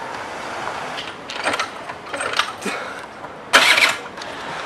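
Motor scooter's starter tried in short attempts, the loudest and longest about three and a half seconds in, without the engine catching: the scooter won't start.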